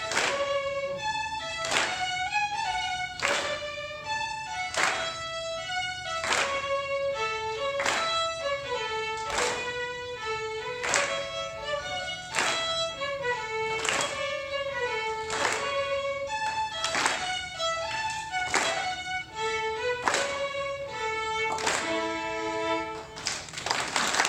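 Solo fiddle playing a Scottish tune, a lilting melody marked by a sharp tap about every second and a half. Near the end it closes on a held chord of several notes bowed together.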